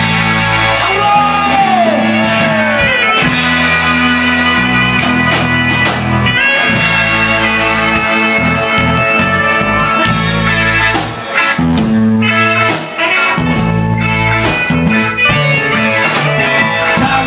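Instrumental intro of a rock song: guitar over a repeating bass line, with a note sliding up and down about a second in, before the vocals come in.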